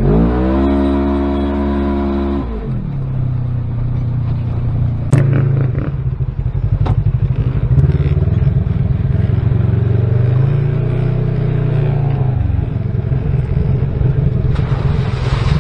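Side-by-side UTV engine running under load on a muddy trail, revving up and holding for the first couple of seconds, then dropping back and running on steadily. A few sharp knocks come through about five to eight seconds in.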